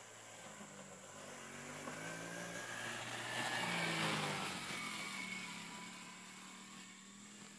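Kazuma Meerkat 50cc ATV's small engine running as the quad rides up to the microphone, passes close about four seconds in, and moves away, growing louder and then fading.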